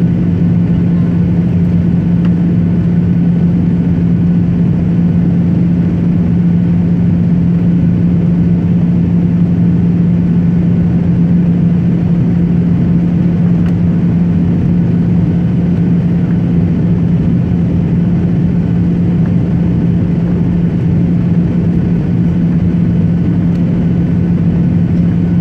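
Passenger airliner in flight, its engines droning steadily: a strong, even hum over a rumble that holds unchanged throughout.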